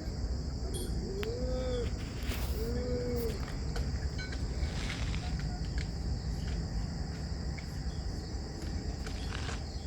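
Steady high-pitched insect chorus, with a low rumble underneath. Two short calls rise and fall in pitch, about a second in and again about three seconds in.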